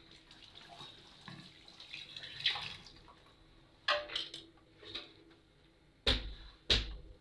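Scattered kitchen handling noises, ending with two heavy thumps about half a second apart.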